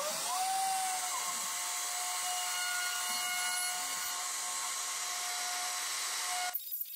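NymoLabs 710 W trim router, used as a CNC spindle, spinning up and settling into a steady high whine about a second in, running without cutting as the bit lowers toward the wood. The sound cuts off suddenly near the end.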